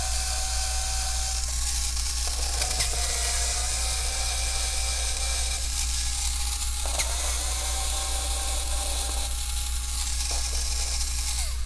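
Electric screwdriver whirring in three runs of a few seconds each, backing the screws out of a laptop's bottom cover, over a steady hiss and low hum.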